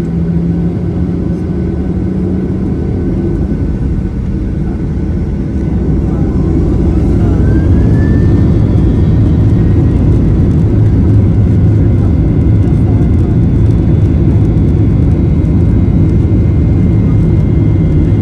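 Boeing 737-800's CFM56 jet engines heard from inside the cabin: a steady low rumble that grows louder about six seconds in, with a whine rising in pitch soon after.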